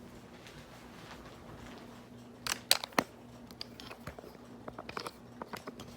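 Harbor Breeze Armitage ceiling fan motor running on high with a steady electrical hum. About halfway in come a run of sharp clicks and taps, the loudest two close together, then lighter ticks.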